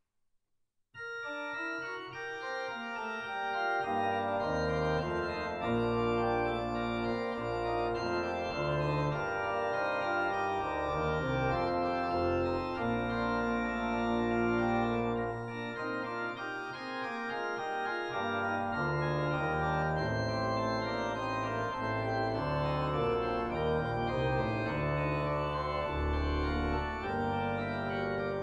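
Organ playing slow, sustained chords over deep bass notes, starting suddenly about a second in.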